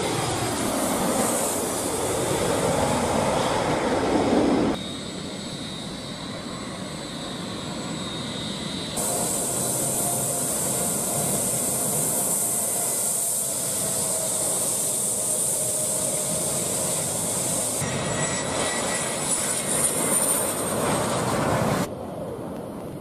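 Jet airliner engines at close range, heard in several short clips cut one after another. A low approach passes overhead, then the engines run at high power for a long stretch with a strong steady high whine. Near the end comes another loud engine passage, while the jet blast blows dust over the onlookers.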